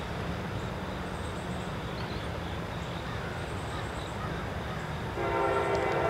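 A low rumble, then about five seconds in a diesel freight locomotive's air horn sounds a steady multi-note chord and holds it, sounding for the grade crossing.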